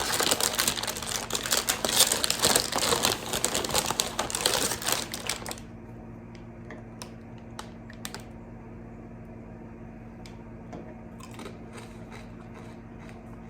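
A bag of chips crinkling and rustling as it is handled, for about five and a half seconds, then it stops. A few faint clicks follow.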